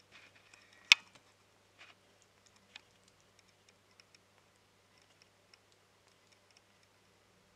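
Sugar glider lapping milk from the tip of a feeding syringe: faint, irregular small tongue clicks. One sharp, loud click comes about a second in and a smaller one near three seconds.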